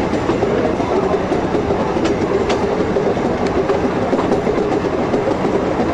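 Schynige Platte electric rack-railway train running uphill, heard from on board: a steady rumble and rattle of the car on the track with a few faint clicks.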